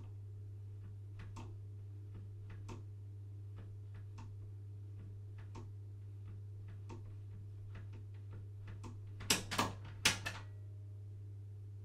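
A steady low hum with faint, scattered ticks, then near the end a quick run of about four loud knocks or bangs inside the house.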